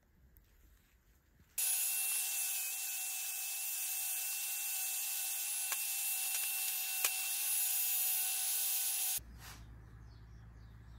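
Angle grinder with an abrasive disc running and grinding on a brass rod ring, dressing down the brazed joint, with a steady high whine. It starts suddenly about a second and a half in and cuts off about nine seconds in.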